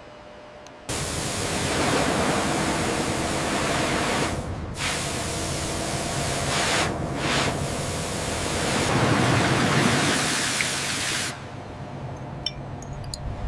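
A loud hissing rush of noise starts suddenly about a second in and breaks off briefly twice. It drops to a quieter rumble with a few faint clicks near the end.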